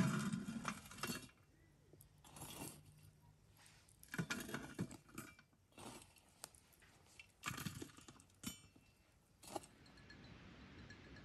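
Small hard objects clinking and rattling in about five short bursts, giving way near the end to a faint steady hiss.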